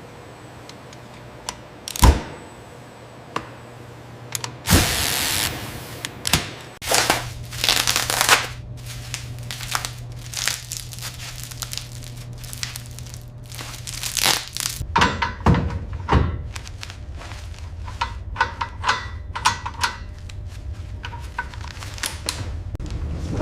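Work noises: irregular knocks and clicks, a few short bursts of hiss (the loudest about five seconds in), over a steady low hum that grows stronger about two-thirds of the way through.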